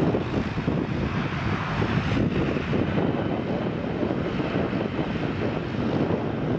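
Antonov An-225 Mriya's six Progress D-18T turbofan engines running as the jet moves slowly along the ground: a steady, rough rumble with a fainter hiss above it.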